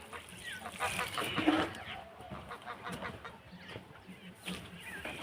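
Domestic poultry calling, with a quick burst of calls about a second in.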